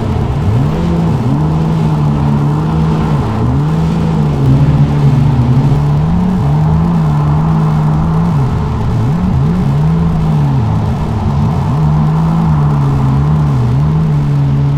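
Motor vehicle engine running steadily at road speed, its pitch repeatedly rising, holding and dipping as the revs change, with heavy wind and road noise.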